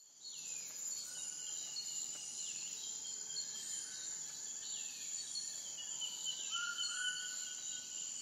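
Outdoor nature ambience: a steady, high-pitched insect drone with birds calling over it. A falling call repeats every couple of seconds, and short whistled notes come in now and then.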